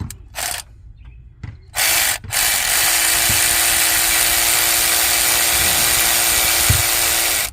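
Harbor Freight Earthquake 12-volt cordless impact wrench, run in two short blips and then one long steady run of about five seconds that stops abruptly, backing out a 13 mm alternator mounting bolt.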